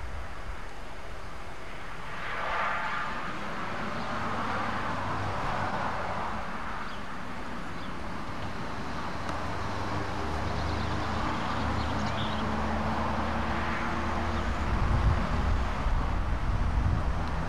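A low engine hum from something unseen, its steady tones growing louder over the second half, over a steady outdoor hiss.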